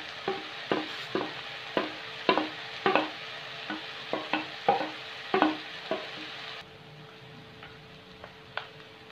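Wooden spatula scraping crab meat and crab fat off a plate into a wok of frying diced vegetables, a sharp scrape or knock about every half second over a steady sizzle. About two-thirds of the way in the sizzle drops away abruptly, leaving quieter stirring with a few light clicks.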